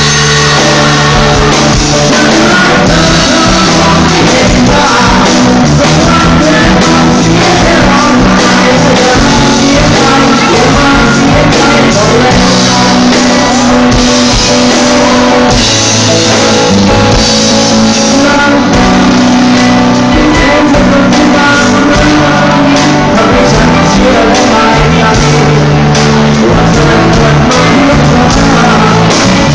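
Loud rock-style music with a singing voice, running without a break.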